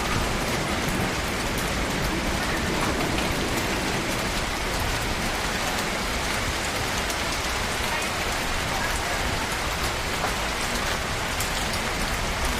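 Tropical rain falling steadily: an even hiss of rain with scattered sharper drop ticks.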